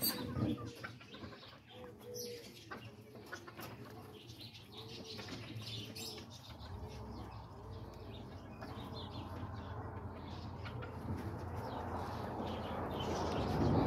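Pigeon cooing in a long run of repeated rolling coos, about two a second. A low rushing noise builds over the second half and covers the calls near the end.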